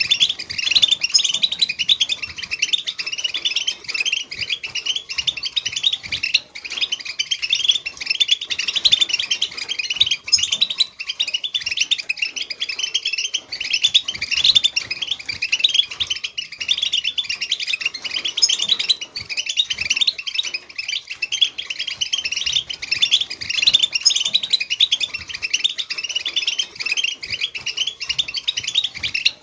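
A flock of European goldfinches twittering and chattering together, a dense, unbroken stream of quick high chirps.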